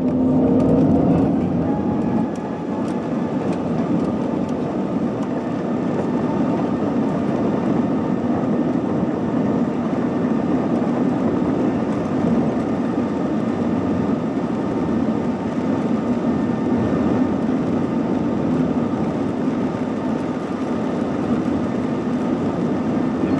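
Jet airliner's engines and airflow heard from inside the cabin as the plane moves along the runway: a steady rush with a faint, even whine.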